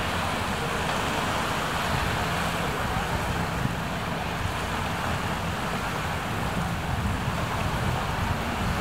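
Steady rush of storm-surge floodwater washing across a flooded quayside, with gusting wind buffeting the microphone as a low rumble.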